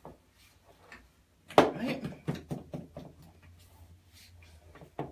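A utensil stirring and scraping thick cake batter around a plastic mixing bowl, in a quick run of strokes, about five a second.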